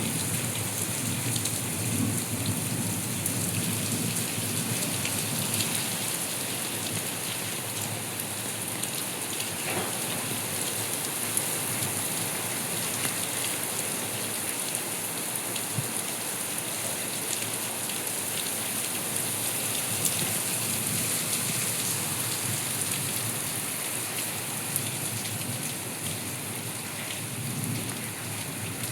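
Steady rain falling, an even hiss with individual drops ticking through it.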